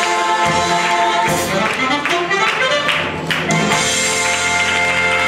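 Stage-show music: held instrumental notes over a beat, with several percussion hits.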